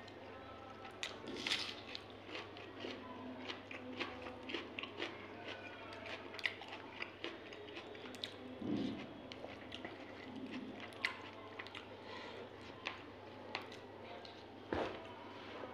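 Close-up eating sounds: wet chewing and crunching of spicy chicken gizzard-and-liver curry (pota kaleji) with rice, eaten by hand. Many small sharp mouth clicks, with a few louder bites.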